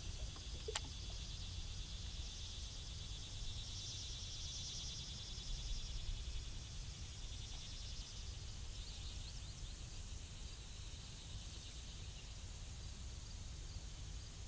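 Insects trilling steadily over a low outdoor rumble, with a single faint click about a second in.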